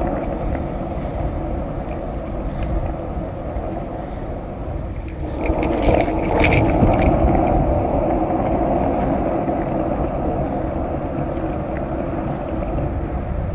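WhiteFang 31 x 7.88 complete skateboard's wheels rolling over asphalt, a steady rumble. About five seconds in it gets louder and rougher for a couple of seconds, with gritty scraping while a foot pushes along the pavement.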